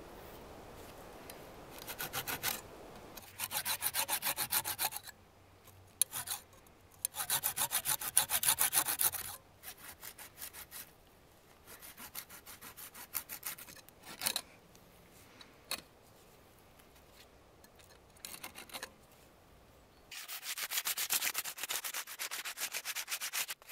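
A blade scraping along a fresh birch branch in bursts of quick back-and-forth strokes, a second or two at a time with pauses between. Near the end, sandpaper is rubbed rapidly up and down the branch.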